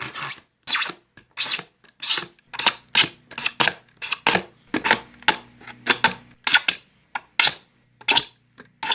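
Thin plastic electric-fan blade being drawn across a sharpener at a 20-degree angle: short dry scraping strokes, about two a second, around twenty in all.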